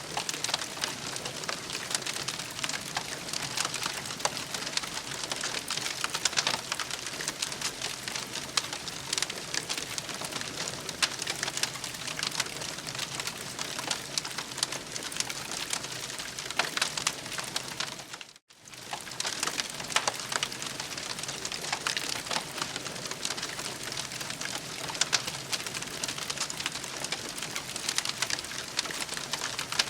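Wood fire crackling and popping steadily, a dense stream of small sharp snaps. The sound cuts out completely for a moment about two-thirds of the way through, then resumes.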